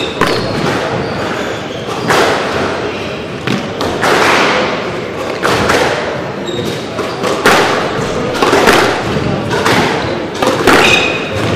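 Squash ball impacts: a string of irregular sharp thuds from racket hits and the ball striking the court walls, each ringing on in the hall's echo.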